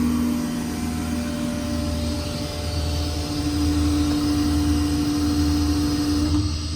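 BOSS BA440 hydraulic-driven air compressor running steadily off the PTO of a 6.7 Power Stroke diesel, a loud machine hum over engine rumble; its pitch steps up slightly about halfway through.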